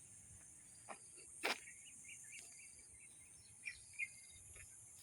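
Faint steady high-pitched insect drone, like crickets, with scattered short bird chirps and a sharp click about a second and a half in.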